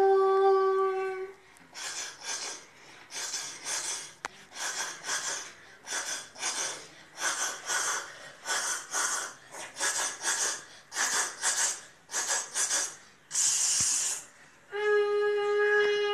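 A boy's vocal mimicry of a train, made through cupped hands. A steady horn-like whistle tone gives way to rhythmic breathy chugging for about eleven seconds, then a short hiss, and the horn-like tone returns near the end.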